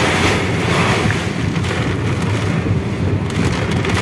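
Heavy rain and gusting storm wind beating on a car, heard from inside the cabin as a steady loud rushing noise.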